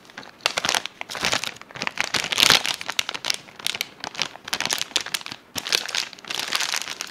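Plastic bag of shredded cheese crinkling as it is handled, a run of irregular crinkles, loudest about two and a half seconds in.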